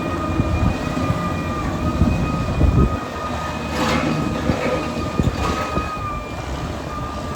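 Caterpillar D6R XL crawler bulldozer working: diesel engine running with the tracks clanking, a steady high whine over the rumble, and two sharp clanks about four and five and a half seconds in.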